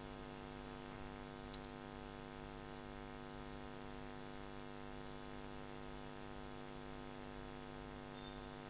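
Steady electrical mains hum through the church's open PA microphone. About a second and a half in comes a brief metallic clink, which fits the chain of the thurible being swung over the Gospel book.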